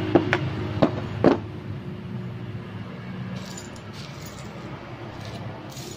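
A few light clicks and knocks within the first second and a half as a small aluminium carburettor is handled and set down on a board, over a steady low hum.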